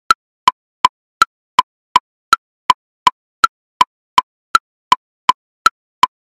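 Metronome at 54 beats per minute subdividing each beat into triplets: a higher woodblock click on each beat followed by two lower clicks, about three clicks every 1.1 seconds in a steady, even pulse.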